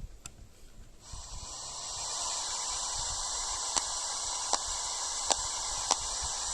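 Radio receiver's static hiss, switched to the aviation band: a steady rush of noise comes up about a second in, with no voice on the channel. A short sharp click repeats about every three-quarters of a second over the hiss.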